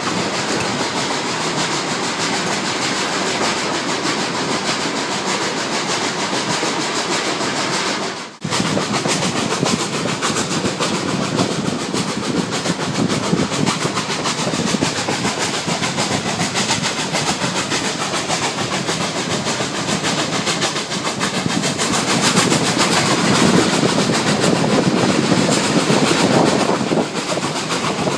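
Steady rumble and clatter of a narrow-gauge steam train's cars rolling on the rails, heard from aboard. The sound cuts out for a moment about eight seconds in and is louder for a few seconds near the end.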